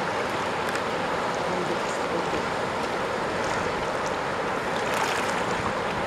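Swollen river rapids rushing steadily, whitewater churning over submerged rocks. The river is in spate, running high and fast after heavy rain.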